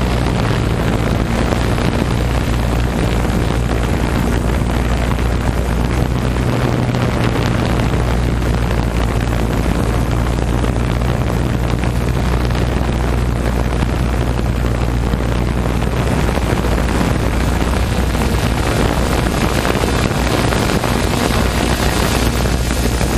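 Steady low drone of a watercraft engine, under heavy wind noise buffeting the microphone.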